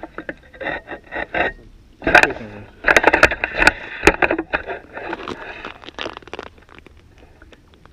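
Camera handling noise: the camera is picked up and moved, with scraping, fabric rubbing and sharp knocks on its microphone, loudest from about two seconds in, then trailing off into lighter scuffs.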